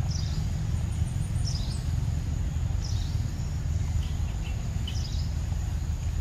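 Outdoor woodland ambience: a steady low rumble, with short high descending bird chirps about every second and a half and a faint steady high insect drone.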